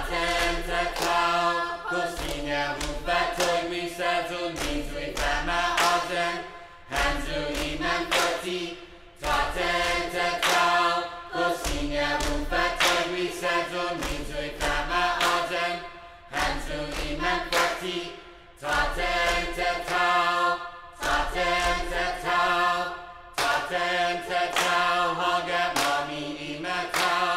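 Vocal music: a group of voices singing together in phrases of about two seconds with short breaks between them, with sharp percussive hits.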